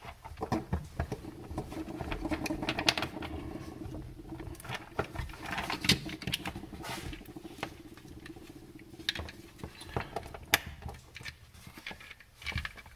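Small sharp plastic clicks and scratchy handling noise as the two halves of a replacement plug's plastic housing are fitted and snapped together on an extension cord. The clicks come irregularly, a few louder snaps standing out near the middle and near the end.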